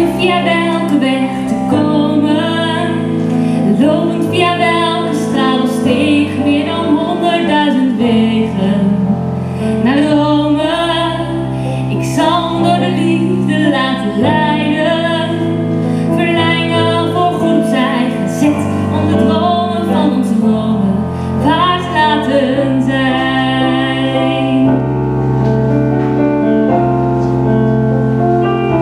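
A female vocalist sings a slow pop ballad into a microphone, accompanied by chords on a Kawai ES7 digital piano. The voice stops about 25 seconds in and the piano carries on alone.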